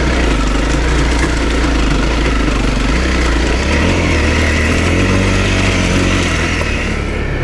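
Dirt bike engine running at a fairly steady, low speed, its pitch shifting slightly a few times.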